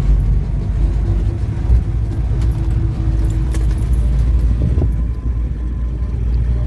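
Land Rover Defender Puma's 2.4-litre four-cylinder diesel running under load off-road, a steady low drone with scattered light rattles, heard from inside the cabin.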